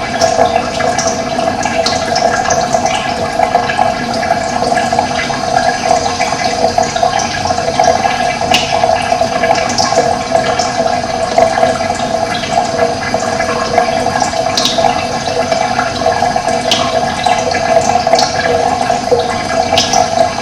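Steady rush of running water, with short high bird chirps scattered over it.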